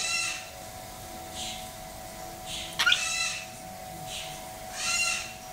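Sulphur-crested cockatoos giving short harsh screeches, one at the start, a louder one about three seconds in and another near the end, with softer hissing calls between. A steady faint hum runs underneath.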